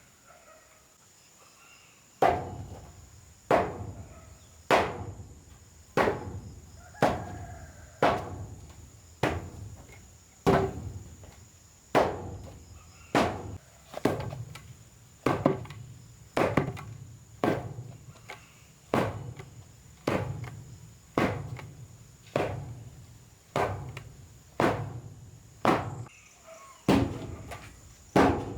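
Evenly spaced blows of a tool on wood. They start about two seconds in and repeat about once every 1.2 seconds, each with a short ringing tail.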